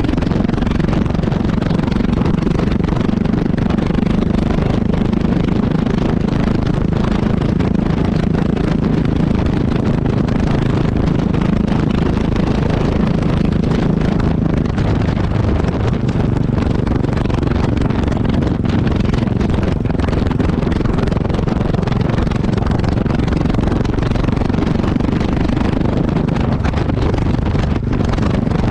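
Yamaha XT660X's single-cylinder engine running through its exhaust, picked up close to the pipe. It holds a steady note and level throughout, with no revving up or down.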